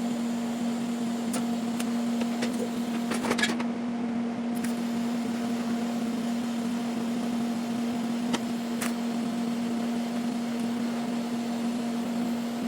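Steady electrical or machine hum, one low tone with fainter overtones over a hiss, with a few faint clicks.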